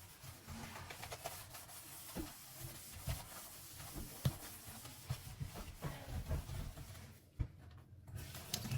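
Light household handling sounds: scattered soft knocks and clicks with rubbing, as things are moved and wiped by hand, dropping off briefly near the end.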